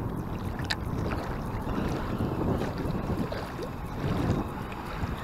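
Wind buffeting the microphone in a steady low rumble, over choppy lake water lapping at the bank, with a faint tick about a second in.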